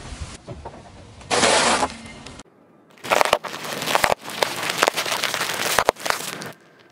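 A car tyre rolling over and crushing wrapped food on asphalt: a short crunch in the first part, then, from about three seconds in, a few seconds of dense crackling and crinkling as the tyre presses down on a row of cellophane-wrapped sprinkle-topped bars.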